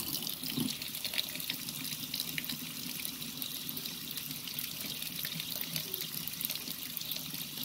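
Hot water running steadily from a kitchen faucet, splashing over a metal thermal regulator and spring into a stainless steel sink.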